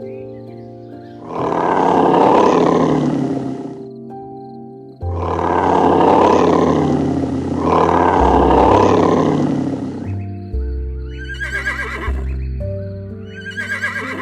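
Background music under animal calls: three long, rough calls in the first ten seconds, then two short, wavering whinny-like calls near the end.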